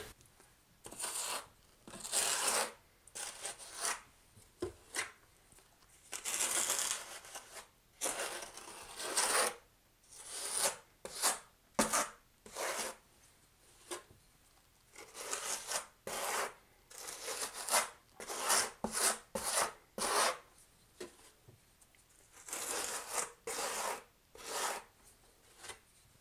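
A small trowel scraping thinset mortar against the back wall of a shower niche in irregular strokes, some short and some about a second long, burning a thin coat of mortar into the Kerdi board.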